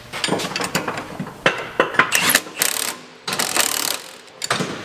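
Wrench work on metal: a run of uneven ratcheting clicks and two short rattling bursts about halfway through.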